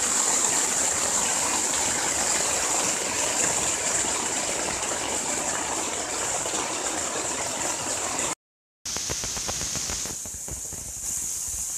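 Heavy rain falling on a dome tent, heard from inside: a steady, dense hiss of noise. It cuts out completely for about half a second around eight seconds in, then comes back a little quieter.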